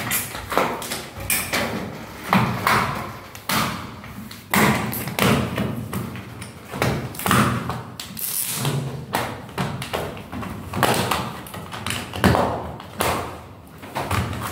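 Irregular knocks and thumps of an aluminium LED profile being pressed up into place against a ceiling.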